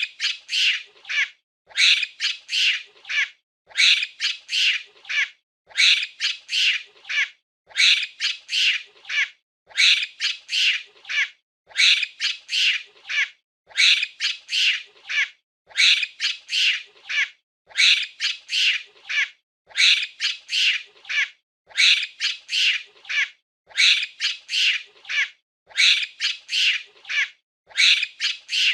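Monkey calls: clusters of three or four short, high-pitched calls repeating about every two seconds in a steady, regular pattern.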